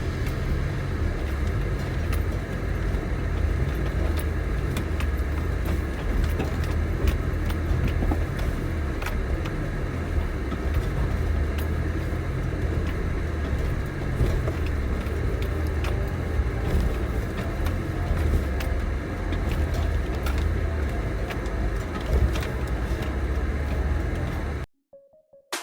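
Suzuki Jimny driving, a steady low engine and road rumble with scattered small ticks, which cuts off abruptly about a second before the end.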